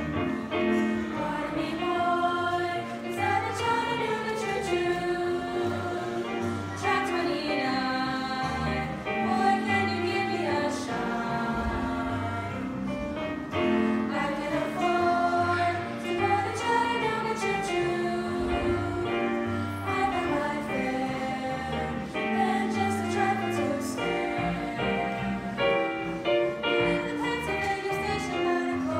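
A group of female singers singing together to piano accompaniment.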